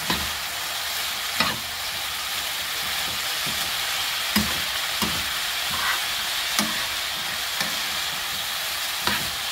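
Shredded potatoes and carrots sizzling steadily in oil in a nonstick frying pan as they are stir-fried, with about half a dozen light knocks of the metal stirring utensil against the pan at irregular intervals.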